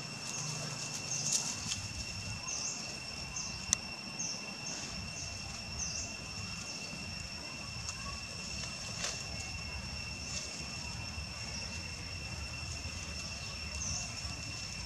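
Outdoor ambience: a steady high-pitched drone holding two even tones, with a run of short high chirps during the first six seconds and a couple of sharp clicks.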